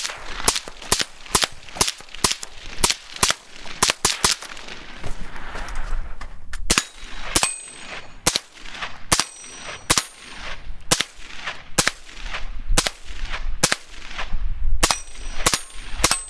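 AR-57 carbine firing 5.7x28mm rounds in steady semi-automatic fire, about two shots a second. From about seven seconds in, many shots are followed by the high ring of steel targets being hit.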